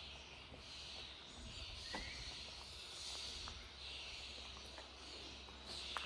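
Faint rural outdoor ambience: a high hissing chorus that swells and fades in patches about a second long, with scattered light ticks, a short rising chirp about two seconds in, and a sharper click near the end.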